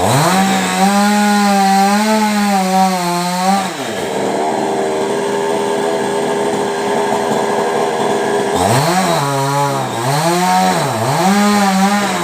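Chainsaw engine held at high revs for about four seconds, dropping back to a steady idle, then revved up again three times in quick succession near the end.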